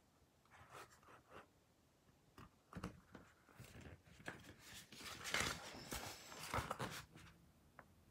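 Paper pages of a booklet being handled and turned. Light rustles and scrapes come first, then a louder stretch of page rustling about five to seven seconds in, as a page is flipped over.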